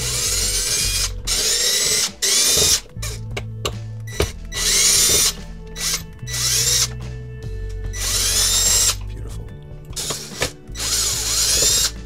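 Ridgid cordless drill-driver backing out the heater housing's deep-set screws, its motor whining in a series of short runs of about a second each with brief pauses between.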